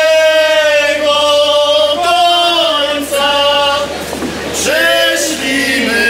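A group of voices singing a song live in long held notes, with a short break about four seconds in.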